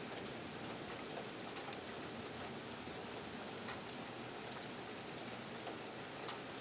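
Steady rain of a severe thunderstorm, with scattered sharp ticks of single drops.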